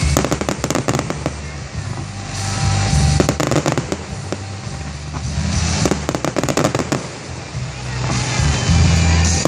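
Aerial fireworks bursting in quick succession: low booms under dense, rapid crackling and popping from crackle-star shells, heaviest in a flurry about a second in and again near the end.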